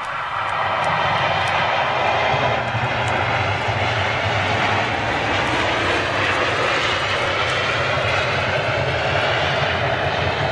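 Flybe Dash 8 turboprop airliner passing close, its engines and propellers running loud and steady, with many fine propeller tones that drift slightly in pitch over a low drone. The sound swells during the first second, then holds.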